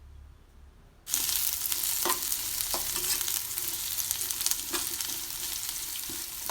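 Chopped onion, green chilli, garlic, ginger and curry leaves frying in hot oil with mustard seeds and fenugreek. The sizzle starts suddenly about a second in and runs on steadily, with a few clinks of the stirring spoon in the pan.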